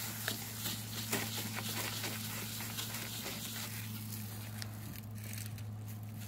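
Paper towel crinkling and rubbing against a truck's headlight lens, with scattered short crackles mostly in the first couple of seconds, over a steady low hum.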